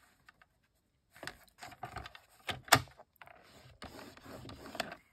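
Cardstock being handled and scored on a paper trimmer: soft paper rustles and clicks, one sharp click a little under three seconds in, then the scoring blade sliding along the trimmer's rail.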